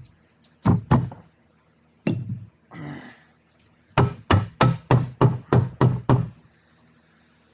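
Hammer tapping a part into place during reassembly of an NP 242 transfer case: two knocks, then a quick run of about nine taps, roughly four a second, about four seconds in.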